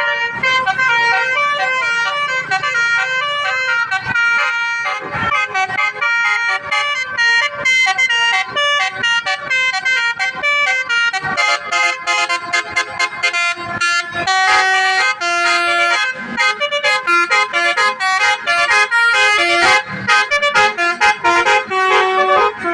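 A bus's basuri musical horn playing a tune as a fast run of short tooting notes that jump between pitches. About halfway through the notes come quicker and brighter.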